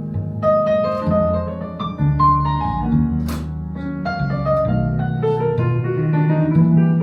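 Instrumental music played back through high-end hi-fi loudspeakers: a piano melody over a bass line.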